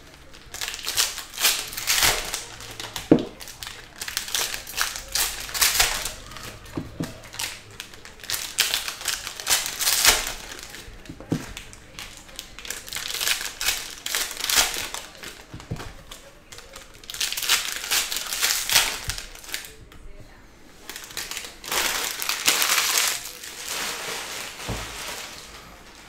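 Foil wrappers of Panini Score football card packs crinkling and tearing as the packs are ripped open by hand one after another, in repeated bursts with short pauses between.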